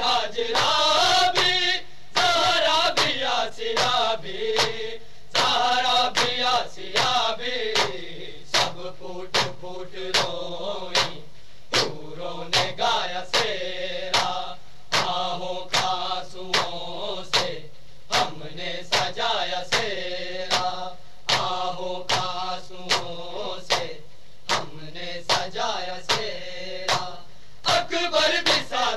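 A group of men chanting an Urdu noha (Shia lament) together, with the sharp slaps of matam, hands beaten on chests, in a steady rhythm roughly one to two times a second.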